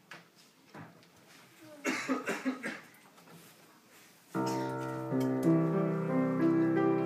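An upright piano starts playing about four seconds in, a child sounding notes and chords that ring on. Before that the room is quiet apart from a short burst of voice-like noise about two seconds in.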